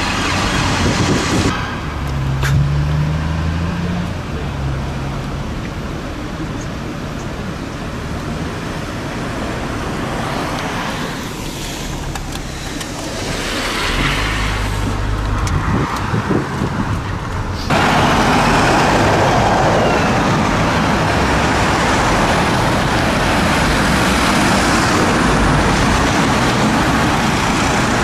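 Urban road traffic: cars and vans driving past, engines running and tyres on the road, with one engine speeding up a few seconds in. Near the two-thirds point the sound cuts to louder, busier traffic.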